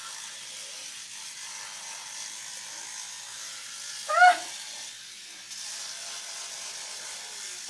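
Electric toothbrush buzzing steadily, with one short cry that rises and falls in pitch about four seconds in.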